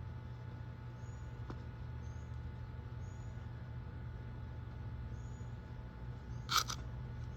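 A steady low hum with faint short high chirps about once a second, and one sharp click near the end.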